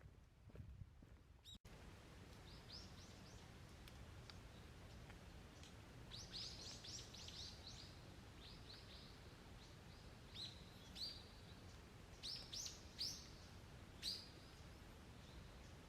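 Wild birds chirping in quick series of short high notes, faint and repeated, with a few louder single calls near the end, over a faint steady low background hum of the open air.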